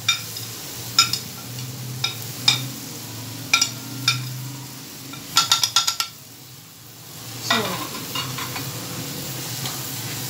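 Wooden spatula stirring grated carrot halwa in a metal wok, scraping and knocking against the pan about once a second, with a quick flurry of clicks about halfway through, over a low sizzle as the mixture cooks down.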